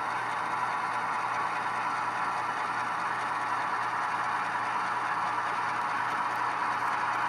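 HO scale Scaletrains ES44AH model locomotive running steadily, a constant rattling, scraping hiss without any deep rumble.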